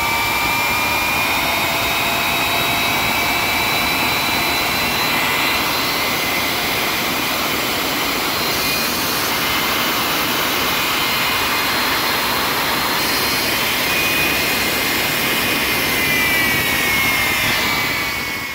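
Westinghouse J34 turbojet running revved all the way up: a loud, steady rush with high whining tones over it. One whine falls a little and the sound fades near the end.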